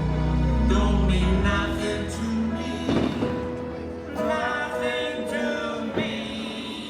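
Music with voices singing in a choir-like style, growing gradually quieter, with a sharp thump about three seconds in and another about six seconds in.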